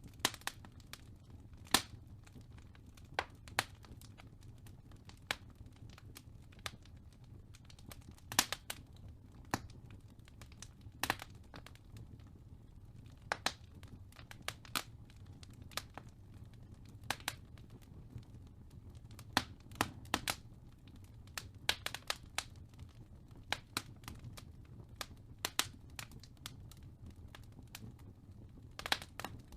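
Wood fire crackling in a fireplace: irregular sharp pops and snaps, about one or two a second, over a faint low rumble.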